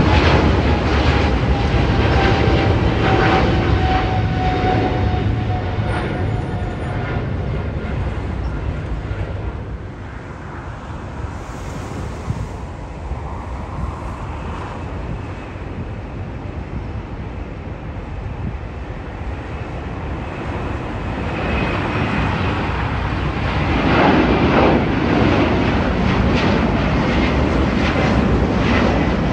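Jet airliner engine noise, loud at first, with a whine that slides down in pitch as the aircraft moves away over the first several seconds. The noise dies down to a lull by about ten seconds in, then builds again from about twenty seconds in and stays loud to the end.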